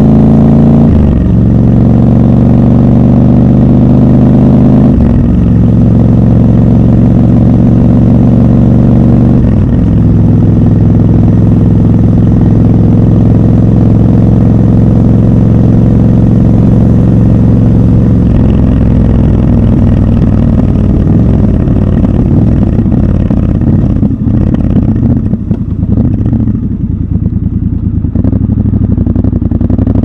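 Triumph Scrambler 1200 XC's 1200 cc parallel-twin engine heard from the saddle, pulling through the gears with upshifts about a second, five seconds and nine and a half seconds in, then cruising at a steady note. In the last third the engine note drops and turns uneven, dipping in loudness, as the throttle is eased off.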